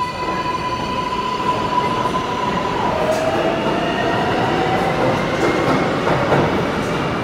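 Kawasaki R142A subway train moving out along the station platform. Its electric motors give a steady whine that drops in pitch about three seconds in and then slowly rises, over the rumble of wheels on the rails. A few clicks come near the end as the last car goes by.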